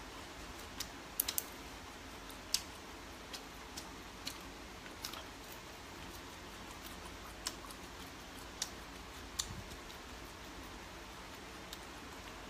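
Faint eating sounds: scattered light clicks from wooden chopsticks and mouth while eating, including a quick run of three clicks a little over a second in, over a low steady room hiss.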